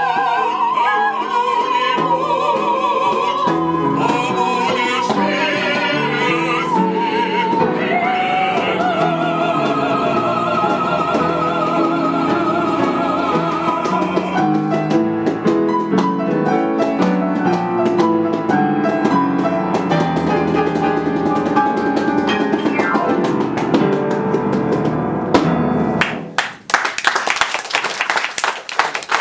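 Live stage ensemble singing, the voices wavering with vibrato over instrumental accompaniment. About halfway through the singing drops out and the instrumental music carries on alone. Near the end the music stops and the audience breaks into applause.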